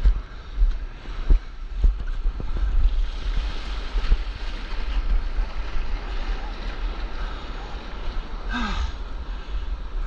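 Wind buffeting the microphone over the hiss of whitewater surf, with scattered short knocks. A brief falling vocal cry comes near the end.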